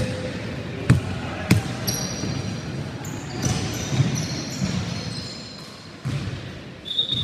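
A basketball bouncing on a wooden gym floor, three sharp bounces in the first second and a half, then sneakers squeaking on the court as the players run, over the murmur of the hall.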